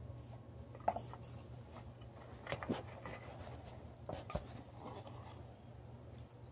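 Small plastic toy pieces and a plastic box being handled and opened on a table: a handful of light clicks and taps with some rubbing, over a low steady hum.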